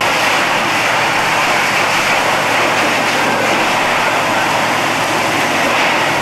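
Steady, loud rushing of hose streams pouring water onto a burning building.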